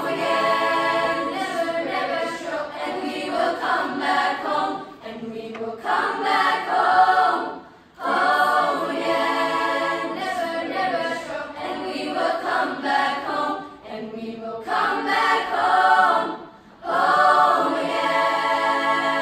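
Junior high choir of mostly girls' voices singing together in long sung phrases. The singing breaks off briefly about eight and again about seventeen seconds in.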